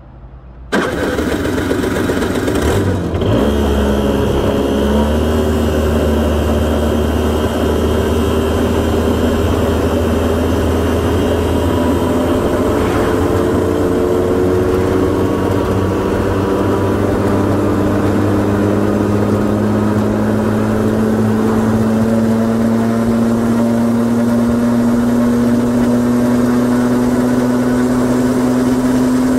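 Honda Gyro X TD01's 50 cc two-stroke engine starting about a second in, then idling steadily with a deep, low note, its idle speed creeping slowly upward.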